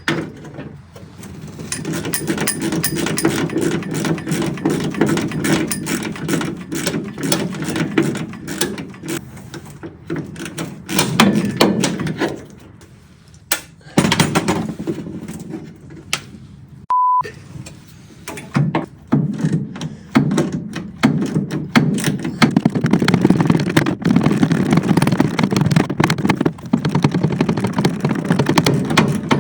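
Hand tools clicking and rattling in quick succession as nuts are worked loose behind the dashboard. Just past halfway, a short pure bleep tone cuts in, the kind laid over a censored word.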